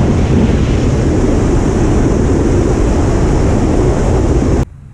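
Loud, steady rushing wind noise on the microphone with a deep rumble underneath, as from a moving vehicle. It cuts off abruptly near the end.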